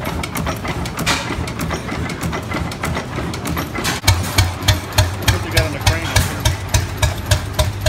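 A large stationary engine running, with a rapid clatter of clicks over a low hum. About four seconds in, this gives way to an antique tractor's engine running, with strong, even exhaust beats about three a second as it drives past.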